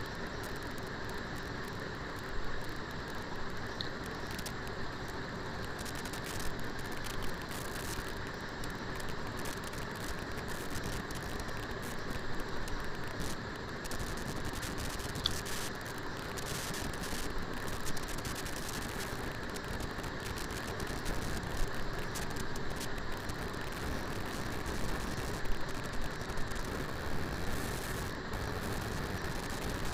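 Chunks of marinated liver sizzling in hot oil in a kadai, a steady sizzle with scattered pops and crackles, as they fry on their first side and give off their water.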